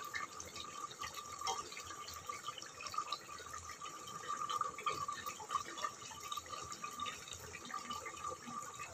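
Mutton curry bubbling and sizzling in an aluminium pressure cooker pan as it is slow-fried with its spices, a faint crackle of small pops and ticks. A thin steady whine runs underneath.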